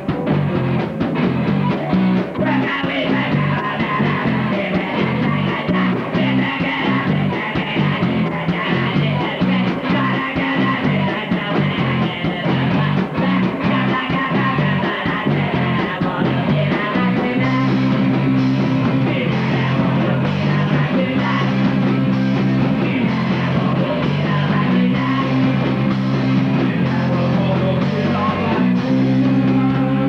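Live punk rock band playing loud: electric guitars, drums and a singer at the microphone. About halfway through, the guitars settle into long held chords.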